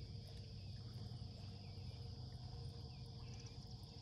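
Faint, steady high-pitched chorus of insects chirring in the grass, over a low steady rumble.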